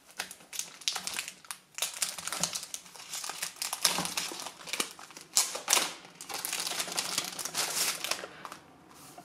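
A clear plastic wrapper around a stack of cards being opened by hand. It crinkles and crackles irregularly, then eases off near the end.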